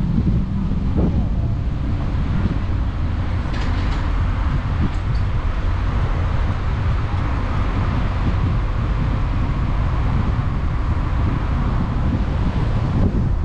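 Steady driving noise from a car moving along a paved street: tyre and engine rumble, with wind buffeting the microphone.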